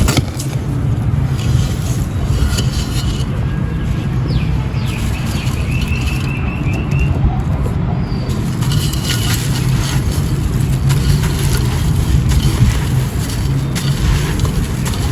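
Steady low rumble of wind on the microphone, over faint crackling of dry gritty concrete chunks being crumbled, with a brief high chirping trill about five seconds in.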